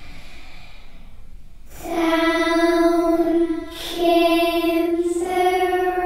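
A little girl's singing voice holding slow, wordless notes, like a lullaby: after a quiet start, three long sustained notes begin about two seconds in, the last one lifting slightly in pitch.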